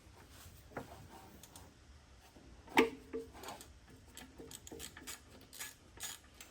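Hand tools working on metal in a car's engine bay: irregular light clicks and clinks, with one loud metal-on-metal clank about three seconds in that rings briefly.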